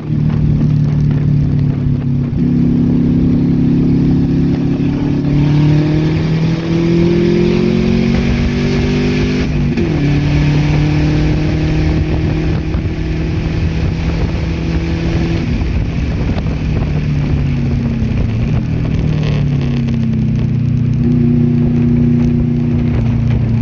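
Car engine heard onboard while lapping a race track. Its pitch climbs slowly under acceleration, drops sharply about ten seconds in as the driver lifts or shifts, sags again a little before twenty seconds, then climbs once more near the end.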